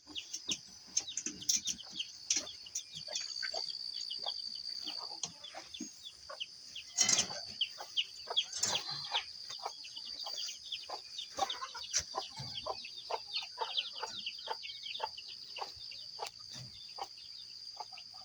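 Chickens clucking with small birds chirping, many short calls scattered throughout, over a steady high-pitched drone.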